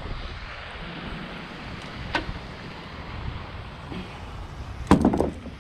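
Wind buffeting the microphone as a steady low rumble, with a faint click about two seconds in and a sharp knock near the end.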